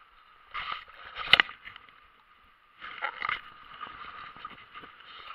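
Rustling and knocking handling noise from a body-worn action camera as the wearer clambers over riverside rocks, with one sharp knock just over a second in and another cluster of rustles about three seconds in.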